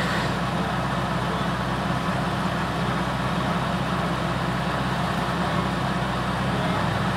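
A vehicle engine running steadily at low revs, an even drone with no rises or breaks.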